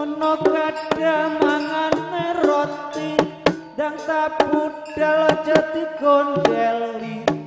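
Live Javanese jaranan gamelan music: quick, steady kendang hand-drum strokes and gong-chime notes, with a wavering melody line above them.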